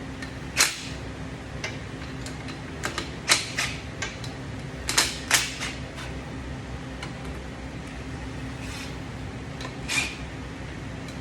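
Scattered sharp metallic clinks and clanks of hand tools and parts being handled while a motorcycle cylinder is taken apart, a few in quick succession around three and five seconds in, over a steady low hum.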